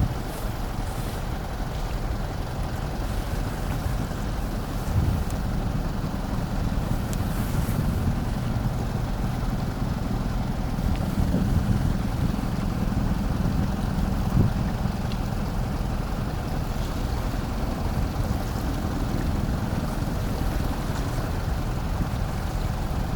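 A car ferry's engines running with a steady low drone, with wind on the microphone.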